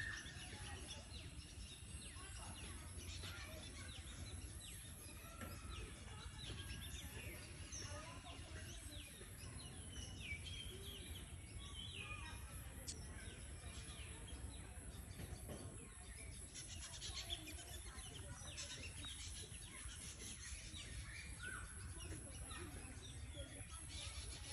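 Several birds chirping and calling, short quick notes scattered throughout, faint over a steady thin high-pitched tone and a low rumble.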